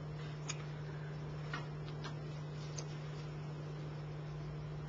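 Steady low electrical hum from the microphone and sound system, with four faint, separate clicks.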